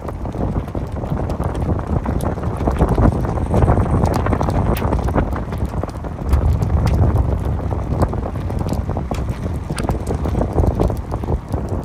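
Gusty wind buffeting the microphone: a low rumble that swells and eases with the gusts, with scattered brief clicks.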